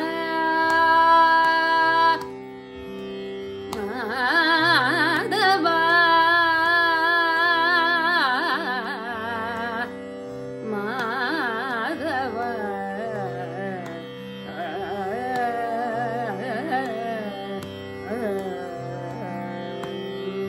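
Woman singing a Carnatic kriti in raga Shuddha Hindolam, with heavily ornamented phrases whose pitch wavers quickly, over a steady tanpura drone. The voice drops out for a moment about two seconds in and again about ten seconds in, while the drone carries on.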